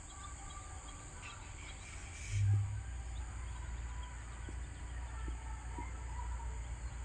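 Outdoor dawn ambience: scattered bird chirps over a steady high insect drone, with a low rumble underneath. A brief low thump about two and a half seconds in is the loudest moment.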